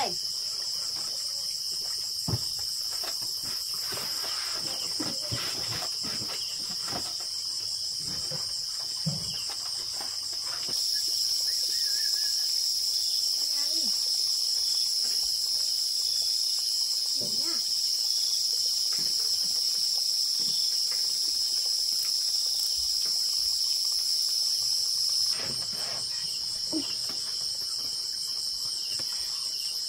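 Night chorus of crickets: a steady, high, pulsing chirr that grows louder for a stretch in the middle, with a few faint knocks.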